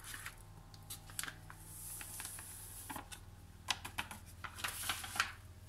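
A spatula tapping and scraping against a glass measuring jug as whipped-cream powder is worked into cold milk, with scattered light clicks, most of them in the second half, and a brief soft hiss about two seconds in.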